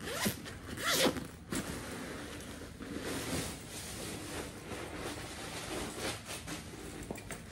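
A nylon backpack being handled: zipper and fabric sounds, with two sharp, louder strokes in the first second or so, then continuous rustling.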